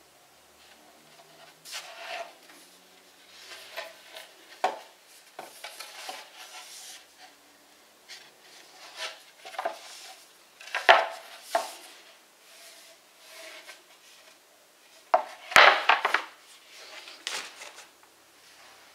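Particleboard bookcase panels being handled and shifted: irregular wooden knocks and scrapes, the loudest near the middle and about three quarters of the way through.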